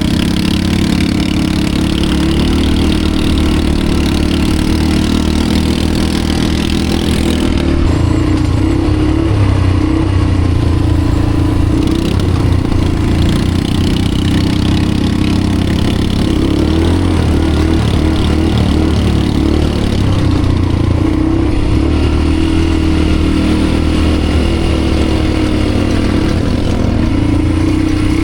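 ATV engine running under way, continuous and loud, its pitch shifting up and down a few times with the throttle.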